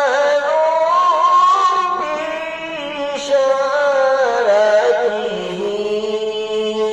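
A man singing a qasida into a handheld karaoke microphone, in long, drawn-out ornamented notes; the melody falls about four to five seconds in and rests on a long low note near the end.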